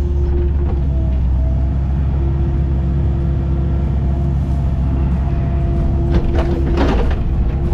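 Excavator's diesel engine and hydraulics running steadily with a low drone and a steady whine, heard from inside the cab. Near the end the bucket scrapes and clatters through soil.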